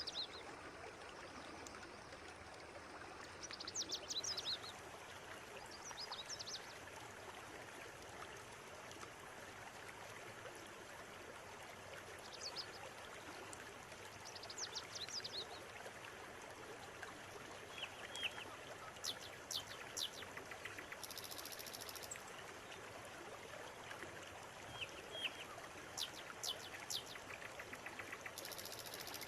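Steady rush of a flowing river, with clusters of short, high bird calls breaking in every few seconds, more often in the second half.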